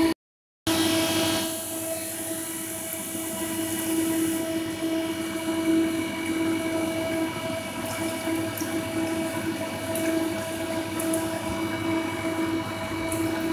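Refrigeration unit of a Crane National Vendors Focus 32 snack vending machine running with a steady pitched hum. The sound cuts out for about half a second at the very start.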